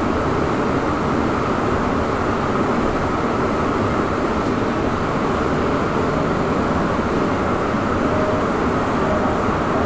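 Steady running noise of a Trolza-5265.00 Megapolis trolleybus under way, heard from inside the passenger cabin: an even rumble and road noise with no distinct knocks or changes.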